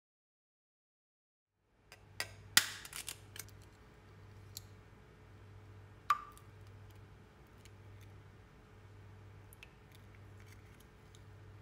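Eggs being cracked and separated by hand. After nearly two seconds of silence comes a quick run of sharp knocks and cracks about two and a half seconds in, and then a single ringing tap of shell against a bowl about six seconds in, over a low steady hum.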